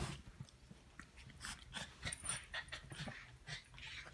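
Small pet dogs play-wrestling at close range: a quick run of short scuffling and snuffling noises.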